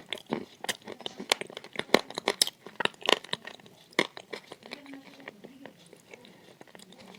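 Close-up crunching and chewing of dry edible clay: a rapid, irregular run of sharp crackles and crunches, with soft mouth sounds between them.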